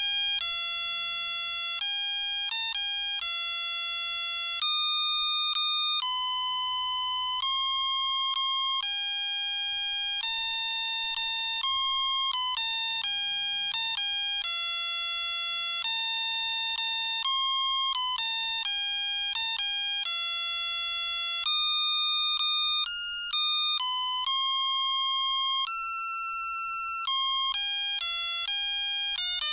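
Musical Christmas light set's control box (Dear Santa) playing a Christmas tune as a simple electronic melody: one buzzy, beeping note at a time, stepping from note to note without pause.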